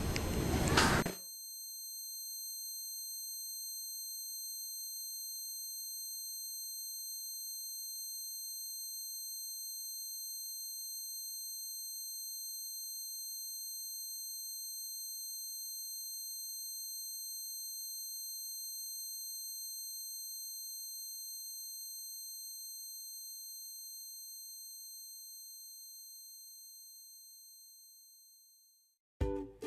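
Shrill, steady electronic test tone: several high pure pitches sounding together, holding unchanged for over twenty seconds, then fading out near the end.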